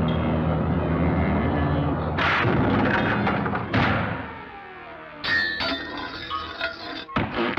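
Cartoon orchestral score broken by slapstick sound effects: a run of sudden clangs and thumps, with the sharpest hits about two, four, five and seven seconds in, some leaving a ringing tone.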